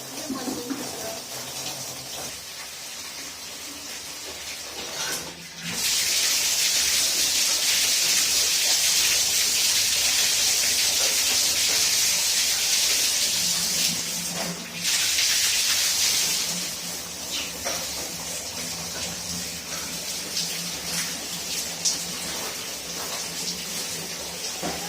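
Water rushing out of a water pipe in a loud, steady hiss. It starts suddenly about six seconds in, breaks off for a moment, then runs on more quietly.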